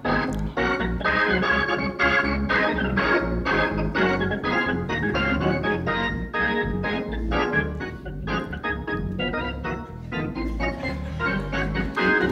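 Hammond-style console organ played in a busy, rhythmic run of short chords over a low bass line.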